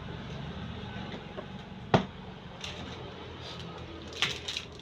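A single sharp knock about two seconds in over a steady low hum, followed by a few lighter clicks near the end.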